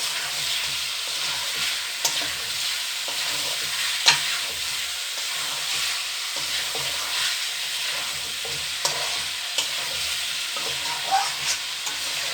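Fried tilapia pieces sizzling in oil and spice paste in a kadai, a steady hiss, with several sharp clicks of a utensil against the pan. The loudest click comes about four seconds in.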